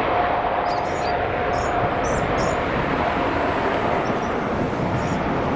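Large airplane's engines running with a steady, loud noise and a faint steady whine. A few short, high chirps sound over it.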